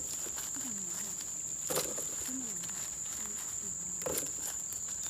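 Steady high-pitched insect drone, with two short soft knocks, about two seconds in and near the end, as handfuls of Chinese bayberries drop into a woven bamboo basket.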